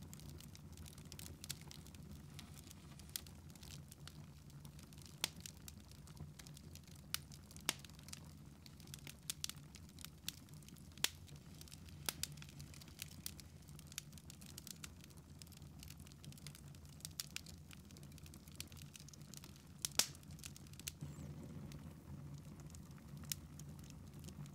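Wood fire in a fireplace crackling, with irregular sharp pops about once a second, the loudest about twenty seconds in, over a steady low hum.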